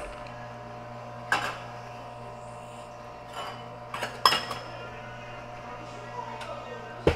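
Sharp clinks and knocks of a small metal shot pitcher and espresso-machine fittings being handled, a few times, over a steady machine hum; the loudest knock comes a little past four seconds in.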